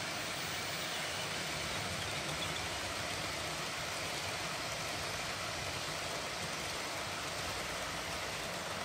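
OO gauge model train of coaches running past on the track: a steady running noise from the wheels on the rails and the locomotive's small electric motor.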